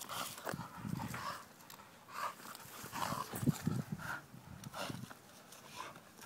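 Bull terrier making short, irregular dog sounds while playing with a branch.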